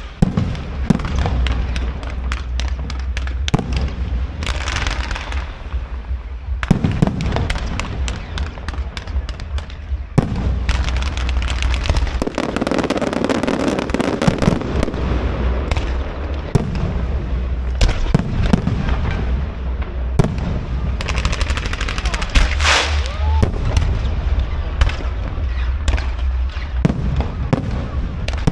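Fireworks going off continuously: dense, irregular cracks and bangs, many close together, over a steady low rumble.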